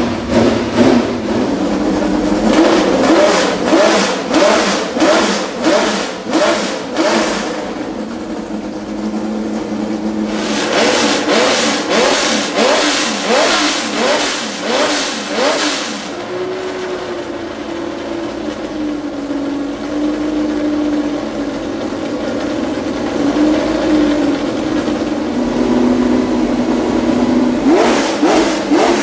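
Ferrari 312 B2's 3.0-litre naturally aspirated flat-12 engine warming up with its throttle blipped. It revs in quick bursts of about two a second, settles to a steady idle, revs in another run of bursts, then idles for a long stretch with a slightly wandering pitch before the blips start again near the end.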